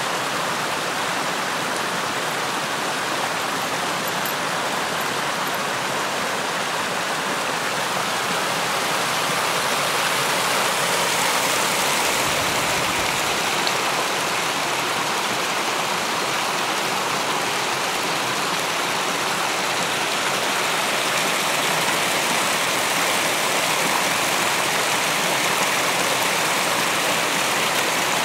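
Shallow stream water rushing over rock into a river pool: a steady, even rush that grows a little louder about ten seconds in.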